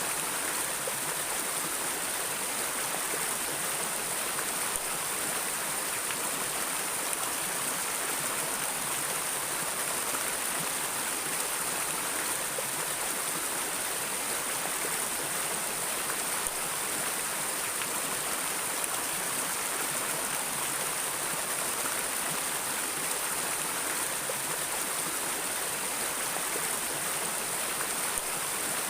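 Flowing river water, a steady, unbroken hiss with little low rumble.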